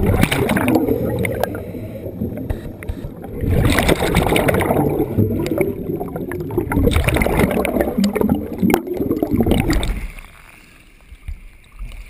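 Scuba diver's exhaled air bubbling out of a regulator underwater, in two long, loud surges. About ten seconds in, the camera surfaces and the sound drops suddenly to a quiet background with a few light splashes.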